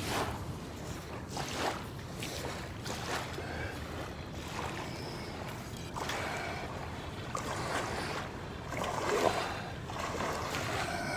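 Steady rushing outdoor noise of wind and river water, broken by several rubbing and knocking sounds from the phone being handled close to the microphone. The loudest knock comes near the end.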